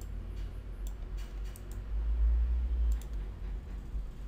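Computer keyboard keys clicking in a few irregular strokes as a web address is typed, over a low rumble that swells about two seconds in.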